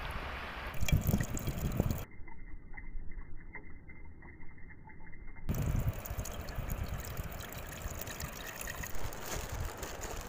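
Liquid poured in a thin stream into a frying pan, trickling and splashing: first a dark sauce, then water from a cup.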